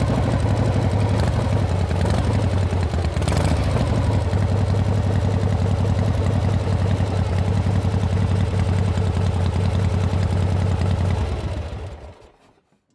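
Harley-Davidson Panhead V-twin motorcycle being ridden at a steady pace, its exhaust beat running evenly with wind rush over it. It fades out about a second before the end.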